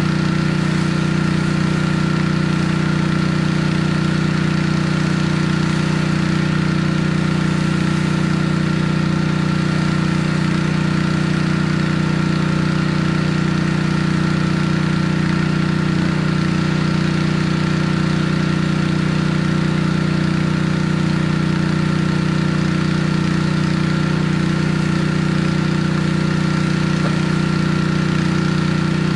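Pressure washer's gas engine running steadily at constant speed, a loud even hum.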